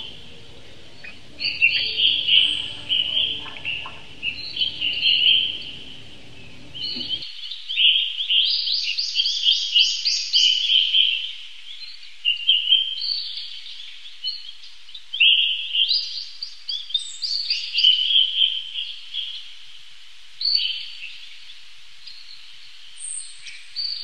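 Caged lovebirds chattering: bursts of shrill, high chirps and runs of rapid repeated notes, coming every second or two. A low background noise cuts out about seven seconds in.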